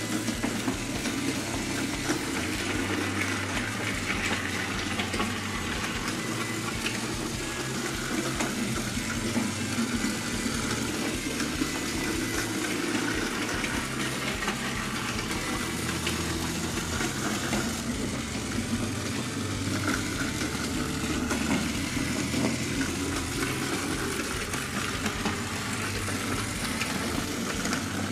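Battery-powered Plarail toy train running: a steady small-motor whir and the rolling of its wheels along wooden track.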